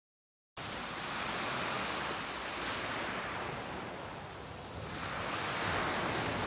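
Sea waves washing onto a pebble beach, cutting in suddenly about half a second in and swelling twice as the waves break.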